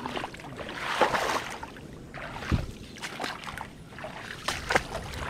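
Irregular footsteps sloshing and squelching through swamp mud and shallow water, with weeds swishing past.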